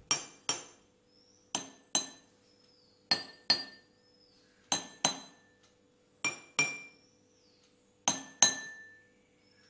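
A steel spoon tapping drinking glasses: six quick pairs of taps about a second and a half apart, each tap ringing briefly. Recorded on a smartphone with the Dolby On app's noise reduction and processing switched off.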